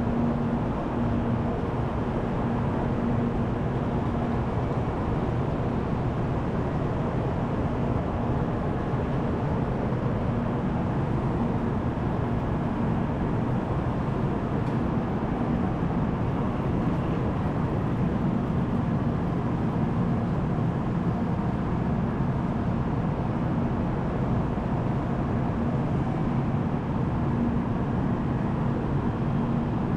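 Steady low rumbling background noise of a shinkansen station platform, with a faint low hum that fades in and out.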